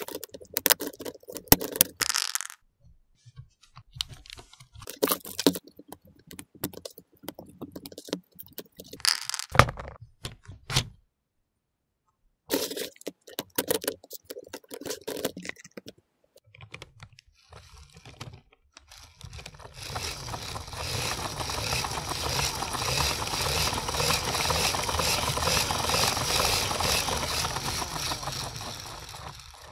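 Plastic LEGO Technic parts clicking and clattering as they are handled and snapped together. About twenty seconds in, a steady whirring starts from the LEGO generator's gear train as its large tractor wheel spins, and it dies away near the end.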